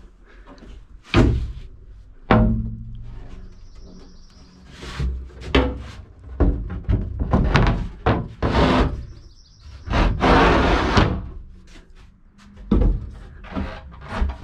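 Plywood sheets knocking and thudding against the camper's wood-and-aluminum frame as they are handled and set in place: two loud thunks in the first few seconds, the second ringing on briefly, then smaller knocks and stretches of wood scraping. Birds chirp faintly in the background.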